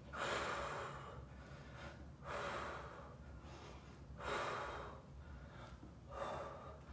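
A woman breathing hard from exertion during a plank with arm raises: a strong breath about every two seconds, four in all.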